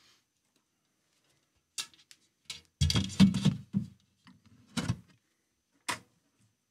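Knocks and thuds of a Bambu Lab X1C 3D printer being set down and shifted into place on a desk. A few light clicks come first, then a cluster of heavy bumps about three seconds in, and two single knocks near the end.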